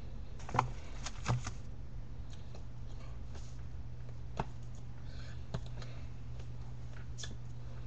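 Steady low hum with scattered light clicks and taps from hands and handled cards near the microphone. The two loudest taps come in the first second and a half, as the cards are put down.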